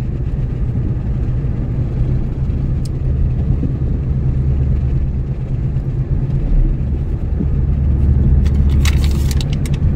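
Road and engine noise heard inside a moving car's cabin: a steady low rumble. A few sharp clicks or rattles come near the end.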